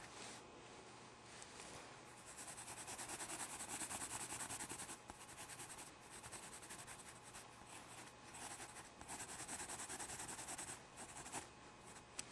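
Pen tip scratching on paper in rapid short strokes, several a second, in three runs with short pauses between them, then a sharp click near the end.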